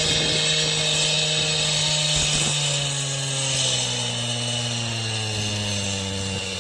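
Chainsaw running as it cuts through a fallen tree trunk, its engine note slowly dropping in pitch.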